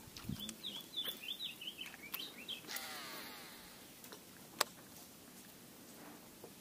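A bird chirping in quick high notes. Then the spool of a Shimano Metanium XG baitcasting reel whirs out on a cast, falling in pitch as it slows, and a single sharp click comes about four and a half seconds in.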